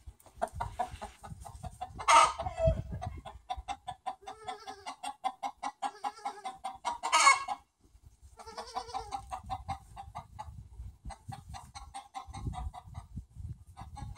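Chickens clucking in a fast, steady run of short clucks, with two louder squawking calls about two and seven seconds in.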